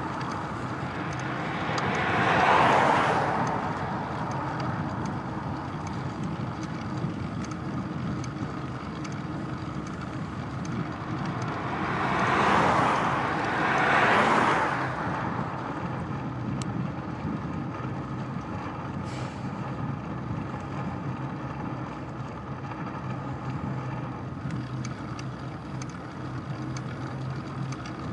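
Cars passing close by on an open road, each a swelling and fading rush of tyre and engine noise: one about two seconds in and two in quick succession about halfway through. Steady wind and road noise in between.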